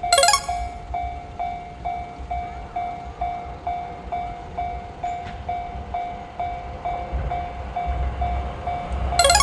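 Japanese level crossing warning bell ringing, a steady ding about twice a second. A short horn blast sounds right at the start and again near the end, and the rumble of an approaching train grows over the last couple of seconds.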